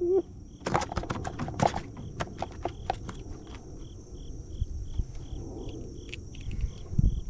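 Quick clicks and slaps as a hooked shellcracker (redear sunfish) is unhooked by hand, thickest in the first few seconds and then sparser. Under it, a cricket chirps steadily about three times a second.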